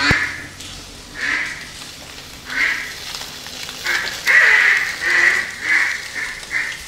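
A series of loud, nasal duck quacks. The first few come about a second apart, then they speed up to about two a second from around four seconds in.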